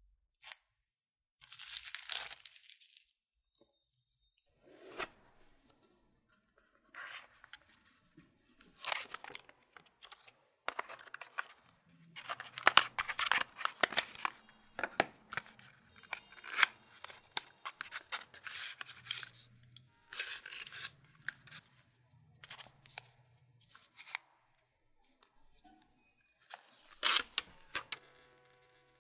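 A smartphone's cardboard retail box being unsealed and opened by hand: a tearing of the seal early on, then scraping, sliding and sharp clicks of the lid, the inner tray and the phone, and a rustle of the wrapping near the end.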